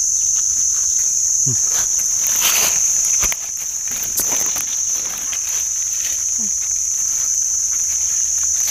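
A steady high-pitched chorus of forest insects, with short rustles of leaf litter and a knife scraping in the soil as mushrooms are cut from the ground.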